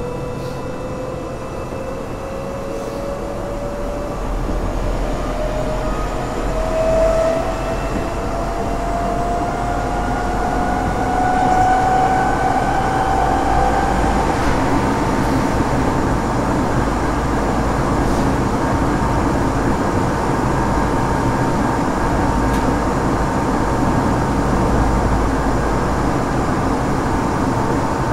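Running sound inside a Tokyo Metro 8000-series chopper-controlled subway car: low wheel and track rumble under a whine that climbs in pitch for about the first fourteen seconds as the train gathers speed, then holds at one pitch while it runs at steady speed.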